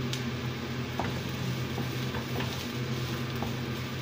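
Onion and garlic sizzling in hot oil in a frying pan, stirred with a wooden spatula that taps the pan a few times, over a steady low hum.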